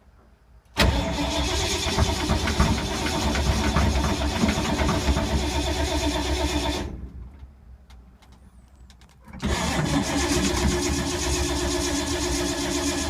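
The 1952 Ford's starter cranks the engine in two long bursts with a short pause between them. The engine turns over but never fires or catches. The owner suspects the points and condenser and no spark after long storage, and he thinks he has flooded it.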